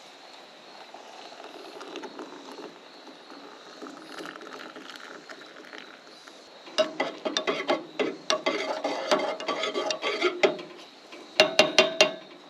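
Metal camp cookware clinking and rattling as it is handled while making coffee. There are quick, ringing metal knocks in two bouts, starting about halfway through and again near the end.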